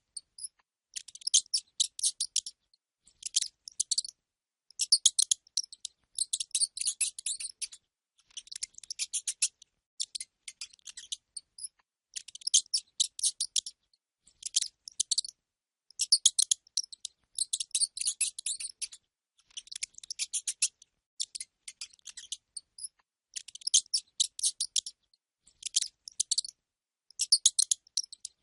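Small rodent squeaking: rapid, high-pitched chirping squeaks in bouts of about half a second to two seconds, with short pauses between them.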